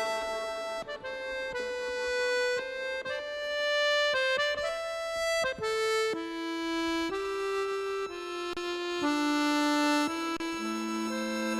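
Accordion playing a slow instrumental melody over sustained reedy notes, without singing. A low held bass note comes in near the end.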